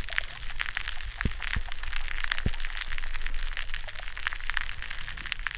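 Dense, continuous crackle of sharp underwater clicks picked up by hydrophones in shallow seawater, with a few deeper knocks about a second and two and a half seconds in. The recordists suspect shell-dwelling mollusks pumping as they filter-feed at favourable tides, but they are not sure.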